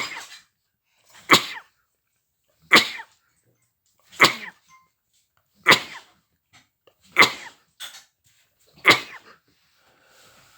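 Sneezing over and over: seven sharp sneezes in a row, one about every second and a half.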